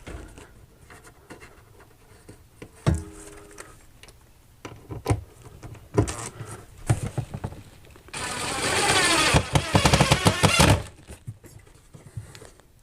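A few scattered knocks and clicks of handling, then about eight seconds in a power drill runs for nearly three seconds, driving a screw up into a wooden support piece.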